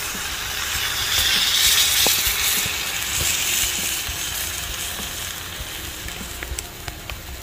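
Red wine poured into a hot Dutch oven of browned beef, hissing and sizzling as it hits the pot. The sizzle swells about a second in, peaks, then slowly dies down.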